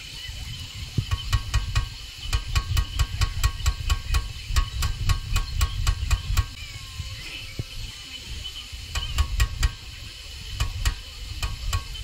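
Hammer striking metal in quick runs of blows, about five a second, each with a short metallic ring. The blows come in several bursts with short pauses between.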